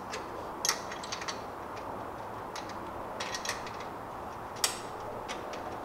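Irregular light metallic clicks and clinks of bolts being threaded by hand through a strut tower bar bracket onto the strut tower, with one sharper clink about four and a half seconds in.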